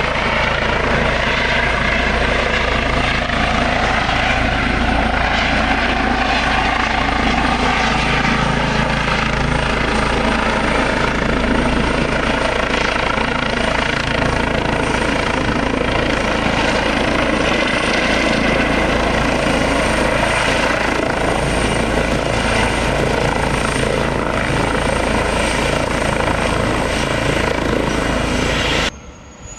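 Eurocopter EC135 T2+ (Airbus H135) helicopter hovering low and setting down: steady, loud main-rotor and twin-turbine noise with a high whine over it, its tones sliding slowly in pitch as the aircraft moves. Near the end the sound cuts abruptly to a much quieter rising whine, the turbine spooling up at start-up.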